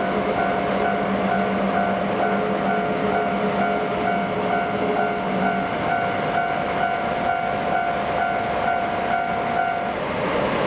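Japanese level-crossing warning bell ringing in a rapid, even ding-ding that stops near the end, over the rumble of a coal freight train on the rails hauled by a DE10 diesel locomotive. A low engine hum fades out about halfway through.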